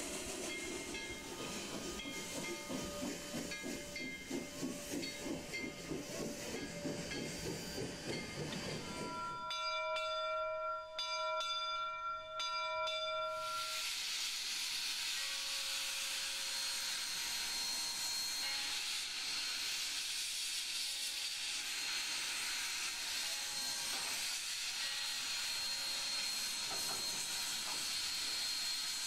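Steam locomotive chuffing in a pulsing rhythm, then its whistle sounding several short blasts about ten seconds in, followed by a steady hiss of steam.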